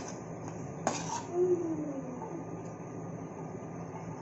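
Steel spoon stirring and scraping coconut pieces in a steel frying pan of ghee, with two sharp clinks of metal on metal, one right at the start and one about a second in, over a steady low hum.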